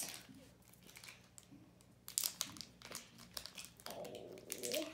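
Plastic wrapper of a Daim chocolate bar crinkling as it is opened and the bar is pulled out, in a run of short crackles about two seconds in.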